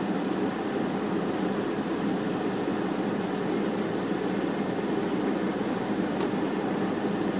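Steady hum of a parked car running with its air conditioning on, heard from inside the cabin, with a faint click about six seconds in.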